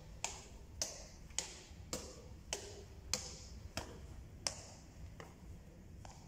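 Footsteps of hard-soled shoes on wooden stairs and floor, a sharp click about every 0.6 s at an even walking pace, the last few softer.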